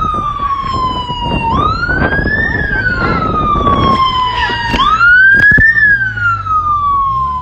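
Police car siren wailing, its pitch rising quickly and falling slowly in a cycle about every three seconds, over wind rumble on the microphone from riding. A sharp knock about five and a half seconds in.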